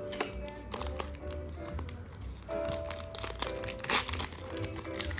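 Background music with a steady melody, over the crinkling and tearing of a trading-card pack wrapper being handled and opened. The crinkling is loudest about four seconds in.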